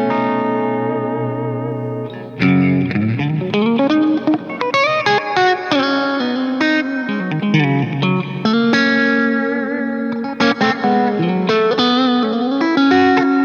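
Electric guitar with P90 pickups played through the clean channel of a Dover DA-50 amplifier, boost off and gain turned low. A ringing chord is held for about two seconds, then single-note lines with bends and slides follow.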